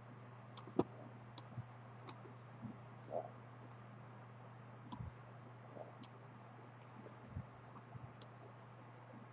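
Faint computer mouse clicks, scattered irregularly about a second or more apart, over a low steady hum.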